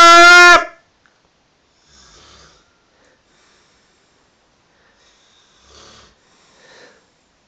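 Snoring: one very loud, high-pitched, tonal snore, loud enough to overload the phone's microphone, cuts off about half a second in. It is followed by a few faint, short breaths.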